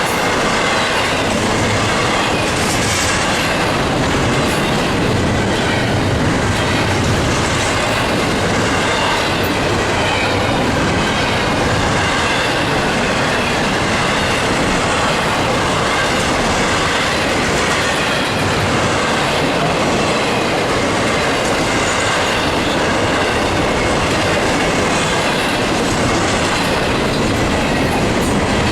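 Intermodal freight cars rolling past at close range: a steady rumble and clatter of steel wheels on rail, with clickety-clack over the joints and a thin wheel squeal.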